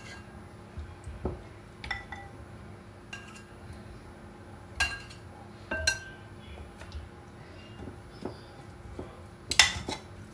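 Metal kitchen tongs clinking against a ceramic plate and clay tagine pots while pieces of boiled oxtail are lifted across. There are a handful of separate sharp clinks with a brief ring, the loudest near the end.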